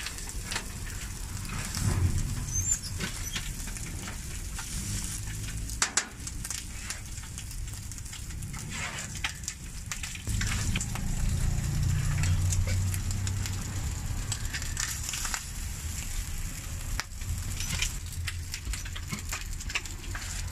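Meat frying on a flat steel taco griddle, a steady sizzle with many quick sharp clicks and scrapes as a metal blade chops and turns it against the griddle. A low rumble rises for a few seconds about halfway through.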